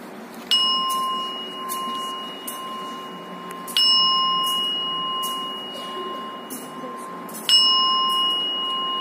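Altar bells rung three times, about three and a half seconds apart. Each ring is a short shake followed by a long, steady ringing tone. This is the signal for the elevation of the host just after the words of consecration.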